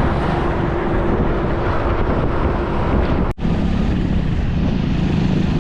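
A moving vehicle's engine and road noise under heavy wind on the microphone. There is a short break about three and a half seconds in.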